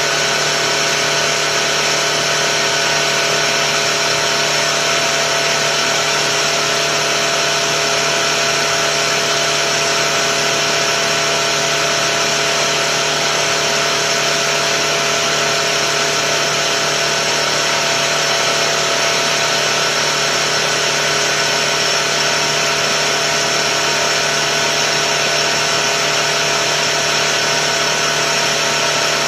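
Tuxing four-stage high-pressure air compressor running steadily as it pumps up a tank, a constant machine whine with several held tones that does not change.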